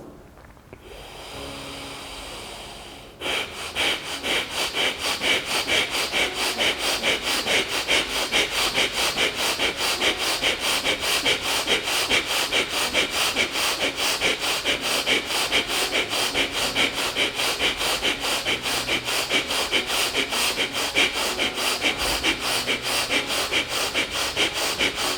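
A person breathing forcefully and rapidly through the nose in a fast round of Surya Bhedi pranayama, an even rhythm of about three breaths a second. Before the fast breathing starts about three seconds in, there is a quieter steady breath of about two seconds.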